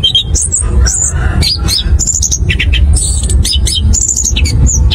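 Chestnut-capped thrush singing a fast, rolling song of quick chirps and short whistled phrases, one note after another with hardly a gap, over a steady low rumble.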